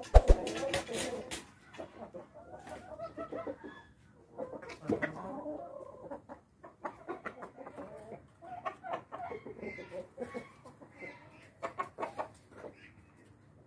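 Chickens clucking: a long run of short, low calls, with a few sharp clicks at the very start.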